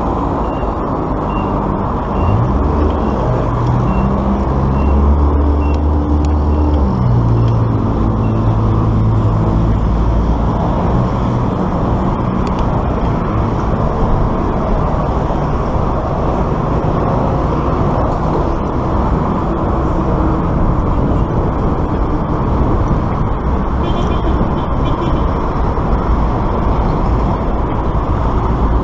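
Steady wind rush on a bicycle-mounted camera's microphone while riding beside road traffic. A large motor vehicle's engine is loud for the first ten seconds or so, its pitch shifting up and down, then fades into the general traffic noise.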